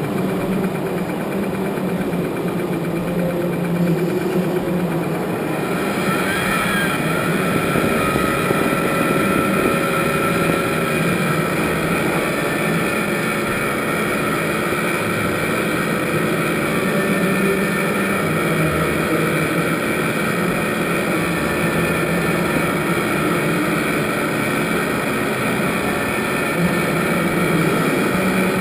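Steady mechanical running noise like small motors, with a higher whine coming in about six seconds in.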